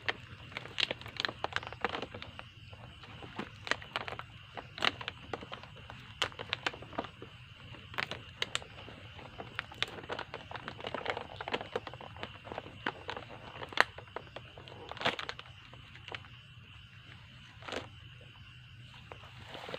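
Footsteps crunching through dry undergrowth: irregular crackles and snaps, the sharpest about fourteen seconds in, over a steady high-pitched tone.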